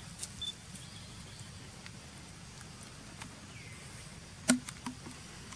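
Pig-tailed macaques picking and tearing at a husked coconut: a few light clicks, then one sharp crack about four and a half seconds in, over a quiet outdoor background.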